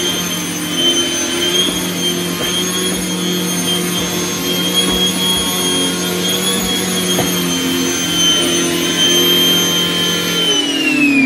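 Henry vacuum cleaner running with a TurboCat EX air-driven turbo head attached: a steady high whine. Near the end it is switched off and the whine falls in pitch as the motor spins down.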